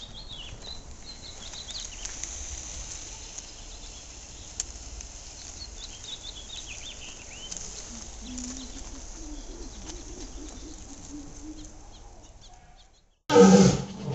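Evening outdoor ambience of small birds chirping over a steady high insect hiss, with a faint low wavering call in the middle. Near the end it drops out briefly and lions roaring starts abruptly, much louder than everything before it.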